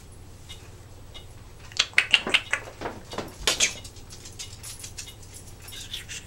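Timneh African grey parrot making a quick run of short clicks and brief chirps from about two to four seconds in, with a few fainter clicks after, over a faint steady hum.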